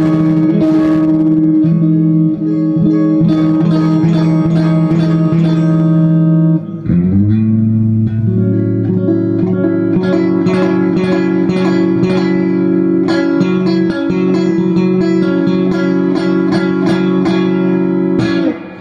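Electric guitar played hard through a 6L6-powered Fender Vibroverb-clone tube amp, pushed for a dirty, "nasty" driven tone. One chord rings out for about six seconds, then a second chord with more bass is picked over and over until near the end.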